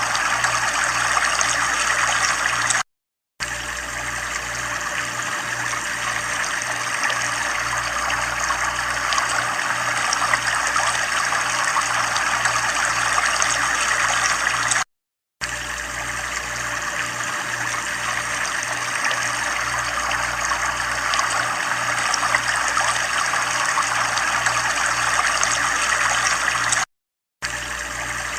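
Running water, a steady trickling flow with a faint low throb repeating a couple of times a second underneath. The sound cuts out completely for a split second three times, about twelve seconds apart, where the recording loops.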